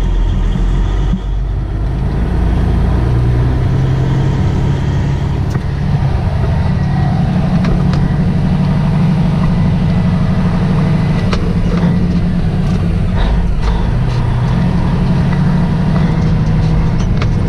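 Tow truck's engine running as it is maneuvered, its note rising a few seconds in and then holding steady.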